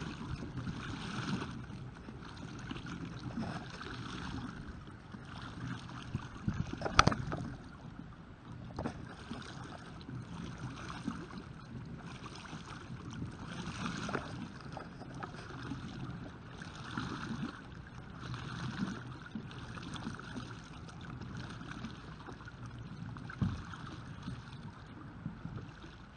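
Homemade pedal kayak's paddle blades dipping and splashing in the water with each pedal stroke, a rhythmic swish about every second and a half. A sharp knock sounds about seven seconds in.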